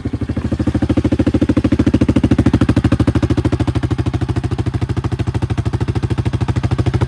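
Yamaha Grizzly 700 ATV's single-cylinder engine running steadily through a custom aftermarket exhaust tip, with a fast, even train of exhaust pulses that gets a little louder about half a second in.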